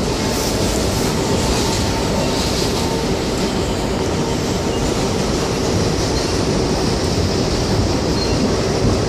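An R142A subway car running on its line, heard from inside the car: a steady rumble and rush of wheels on the rails, with faint steady tones underneath.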